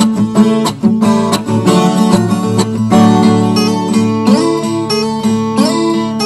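Instrumental background music on acoustic guitar, plucked and strummed notes with a few sliding notes.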